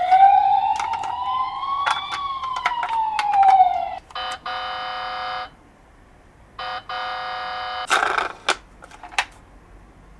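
A toy emergency vehicle's electronic siren wails, rising for about two seconds and then falling for two, over light clicking and clattering. Two flat, buzzy electronic tones of about a second each follow, and a few clatters come near the end.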